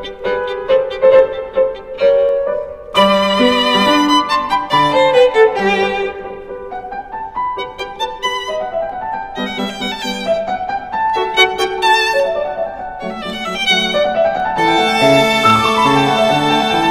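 Background music led by violin, with piano accompaniment, growing fuller near the end.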